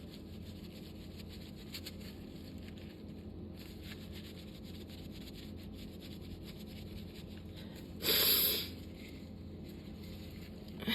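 A person's sneeze: one sharp, breathy burst about eight seconds in, over a quiet room background with a steady low hum.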